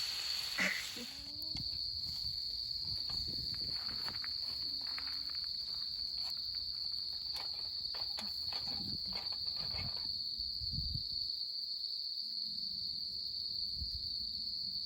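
Autumn crickets singing in one steady, unbroken high-pitched trill, with scattered light clicks and a brief louder sound about half a second in.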